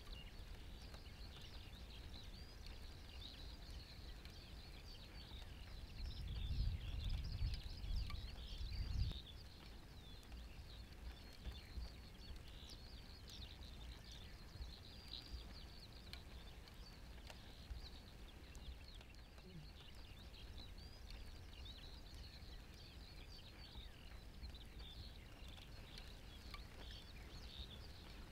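Faint, continuous high twittering and chirping of distant small songbirds, with a low rumble lasting a few seconds about six seconds in.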